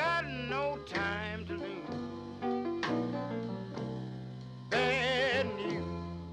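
Background music: a song with a singing voice over instruments.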